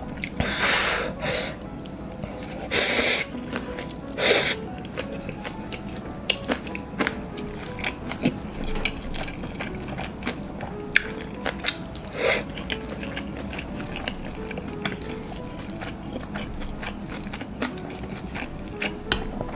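A person slurping and chewing jjapaghetti noodles, with loud slurps in the first few seconds and once more about twelve seconds in. Chopsticks click against the bowl as the noodles are stirred, over soft background music.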